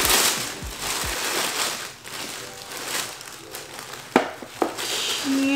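Tissue paper crinkling and rustling as a wrapped gift is pulled open, loudest in the first two seconds, with two sharp clicks a little after four seconds in. Near the end a woman's voice begins a long, slowly falling "ooh".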